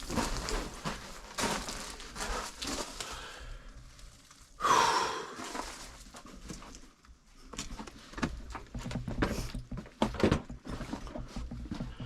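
A person crawling over rough lava rock in a low cave tube: irregular scraping and knocking of hands, knees and clothing on the rock, with one louder rasping scrape about four and a half seconds in.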